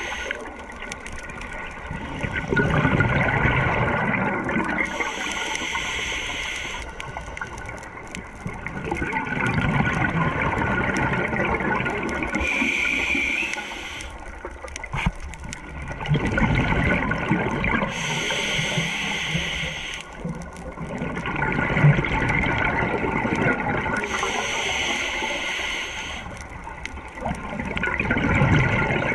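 Scuba diver breathing through a regulator underwater: a hiss on each inhale, then a rush of exhaled bubbles, in a slow cycle about every six seconds.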